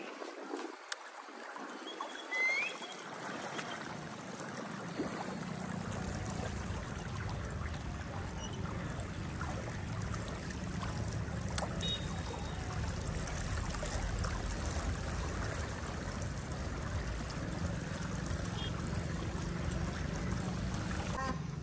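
Water splashing and churning on a river, as on a pedal-driven water cycle. A steady low rumble comes in about five seconds in and continues underneath.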